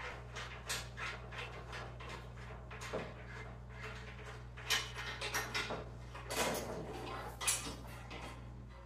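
Irregular metallic clicks and knocks as the handle fittings of a 1968 Toro Snow Hound snowblower are worked by hand, over a steady low hum.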